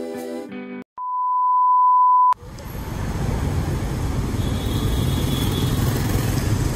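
Music ends, then a single steady beep at one pitch sounds for about a second and a half and cuts off sharply. Then a busy city street's traffic: cars, vans and motorcycles running and passing, a steady low rumble.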